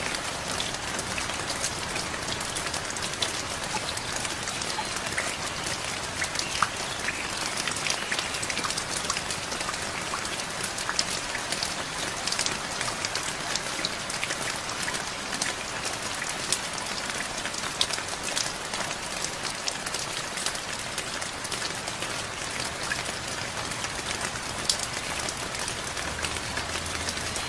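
Steady rain falling, an even hiss with many sharp individual drop hits scattered through it.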